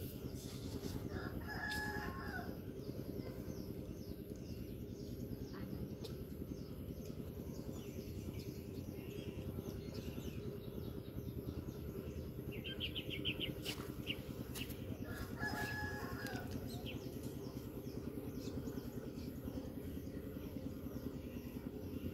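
A rooster crowing twice, about two seconds in and again around fifteen seconds, over a steady low outdoor rumble. A short run of quick chirps comes just before the second crow.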